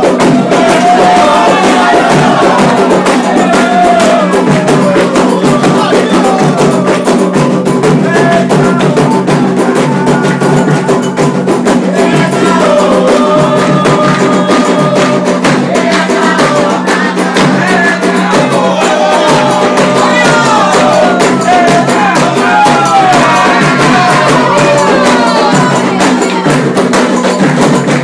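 Candomblé ritual music: hand drums beating steadily, with a small percussion instrument and voices singing a chant.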